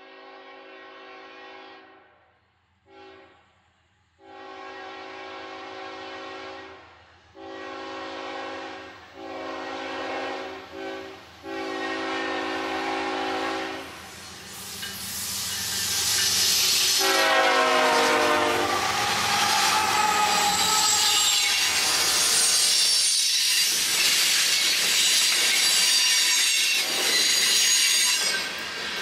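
Locomotive multi-chime air horn sounding a series of blasts on approach: a long one, a short one about three seconds in, then several more long ones. About halfway through the horn stops and the train passes close and loud, its wheels squealing in high tones and clacking over the rail joints.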